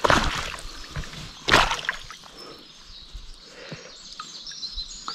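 Two short bursts of water splashing about a second and a half apart, over a steady outdoor background with faint bird chirps. They come as a freshly caught trout is handled at the water to unhook it.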